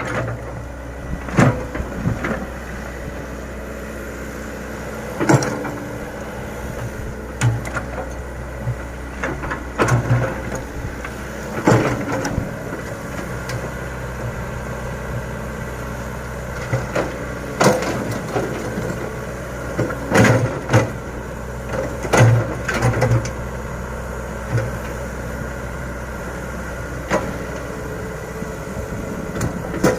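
Komatsu PC100 hydraulic excavator's diesel engine running steadily, with repeated sharp knocks and clatters as the machine works its bucket in sand.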